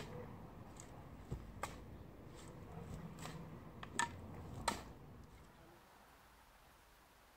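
Faint knocks and scrapes of hand digging, with clumps of sod and dirt dropped into a wheelbarrow. There are about six sharp knocks, the loudest two near four and nearly five seconds in, then it goes quiet.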